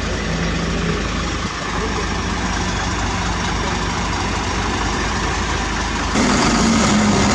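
Heavy diesel engine running steadily at low speed; about six seconds in it gets louder, with a stronger steady hum.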